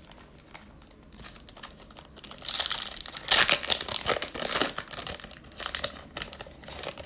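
Foil wrapper of a Bowman Chrome baseball card pack crinkling and tearing as it is opened. It is loudest from about two and a half seconds in, then goes on as lighter crinkling.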